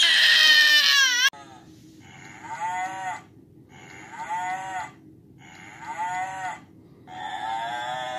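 A baby's loud high squeal cuts off about a second in. It is followed by a plush toy cow mooing four times through its small speaker, each moo about a second long, over a steady low hum.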